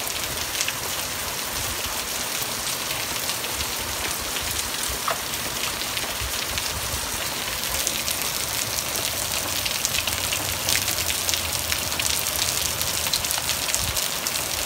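Pea-sized hail pouring down, a dense steady patter of countless small hits on the ground and surfaces, growing a little heavier about halfway through.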